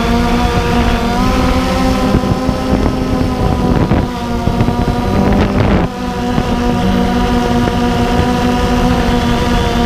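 DJI Phantom 2 quadcopter's four motors and propellers whining steadily in flight, heard up close from the onboard camera, with wind noise on the microphone. The pitch wavers and the level dips briefly about four and six seconds in as the motors change speed.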